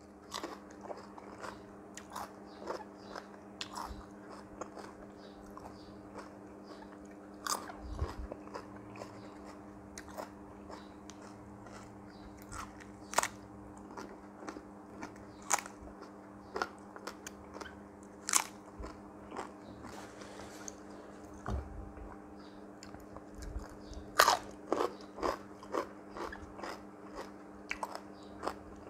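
Close-up eating: irregular crisp crunches and chewing of grilled octopus and fresh raw vegetables, with the loudest run of crunches about three quarters of the way through.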